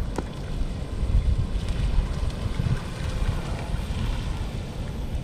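Wind buffeting the microphone with an uneven low rumble, over the faint running of an electric radio-controlled boat skimming across shallow water.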